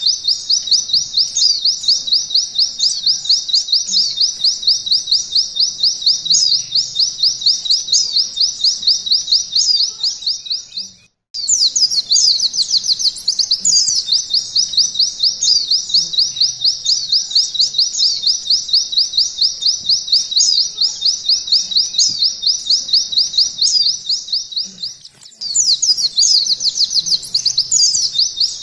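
A white-eye (pleci) singing a long, fast trill in the canary 'nembak' style: high quick sweeping notes repeated about seven times a second. The trill breaks off briefly about eleven seconds in and again near twenty-five seconds, then starts again.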